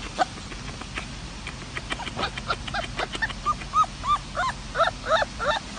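A husky-type puppy's short, high whimpering yips, each one rising and falling in pitch. They start about two seconds in and come faster toward the end, about three a second.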